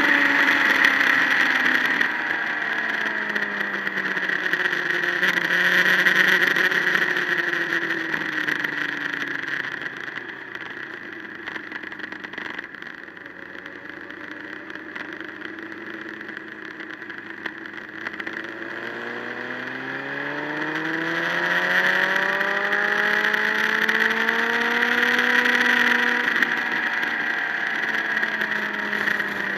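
Motorcycle engine heard from a camera on the bike, its pitch falling as it slows into a bend and staying low and quiet for several seconds. It then rises steadily as the bike accelerates out and eases off near the end, with wind rushing over the microphone throughout.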